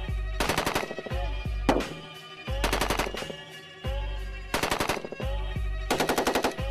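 Rifle fire in several short automatic bursts, each about half a second of rapid shots, over background music with a heavy bass.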